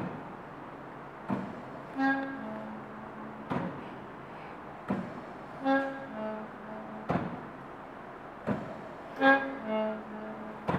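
Locally built mechanical ventilator cycling on a steady rhythm of about one breath every 3.6 seconds. Each cycle has two sharp clicks about 1.4 seconds apart, then a short two-note pitched tone, a higher note falling to a lower, longer one, heard three times.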